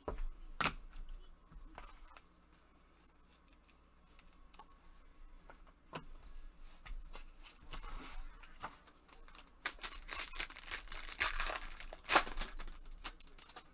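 A foil trading-card pack (2021 Topps Baseball) being handled and torn open, with a few light clicks at first and then a dense run of foil crinkling and tearing near the end, the loudest rip about twelve seconds in.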